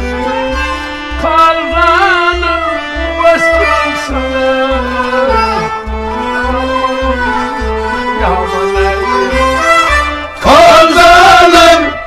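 Kashmiri Sufi folk music in an instrumental passage: a sustained melody moving in steps over a steady low drum beat of about two beats a second. Singing comes back in loudly near the end.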